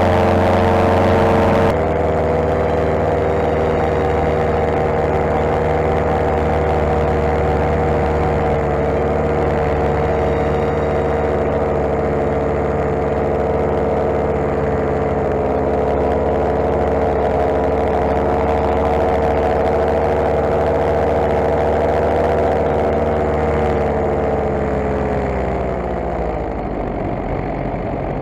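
Paramotor engine running steadily under power in flight, its pitch sinking near the end as the throttle is eased off.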